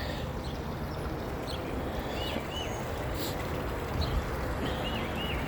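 A small bird calling in short, arched chirps, two about two seconds in and a quick run of four or five near the end, over the steady rushing noise of a pond's bog-filter waterfall.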